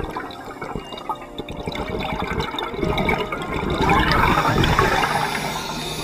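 Scuba diver's exhaled bubbles from a regulator, heard underwater as an irregular bubbling rush that swells loudest about four seconds in.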